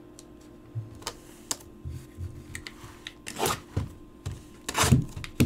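Cardboard trading-card hobby boxes being handled: scattered light clicks and taps, then two louder rustling scrapes about three and a half and five seconds in, and a sharp knock at the end.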